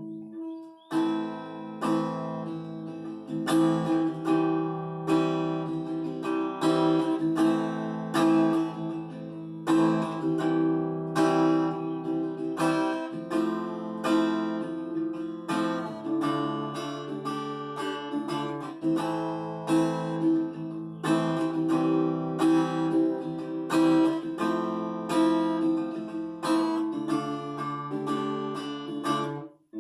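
Epiphone Lil Tex travel acoustic guitar being strummed, about one to two strums a second, each strum ringing on, with the chord changing every few seconds.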